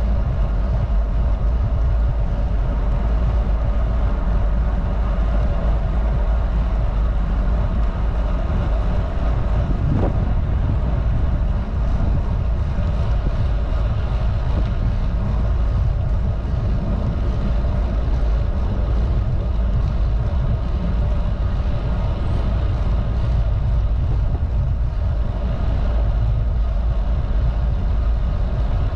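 Steady low wind rumble on the microphone of a bicycle-mounted camera riding at about 18 mph, with road-bike tyres running on asphalt beneath it.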